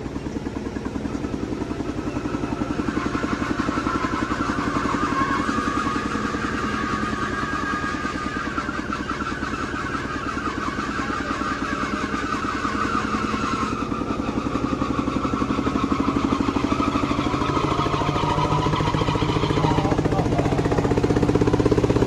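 Single-cylinder diesel engine of a Thai i-taek walking tractor running steadily under way, with fast even firing beats, getting louder near the end.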